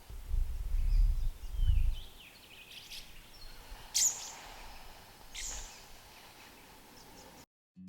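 Wild birds calling outdoors: a few short chirps and gliding calls, with two sharper, high calls about four and five and a half seconds in. A low rumbling noise fills the first two seconds.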